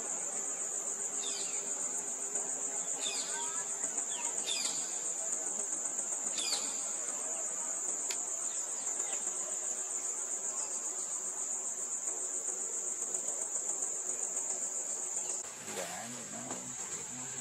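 Steady high-pitched drone of an insect chorus, with a handful of short, falling bird chirps in the first seven seconds. Lower sounds join near the end.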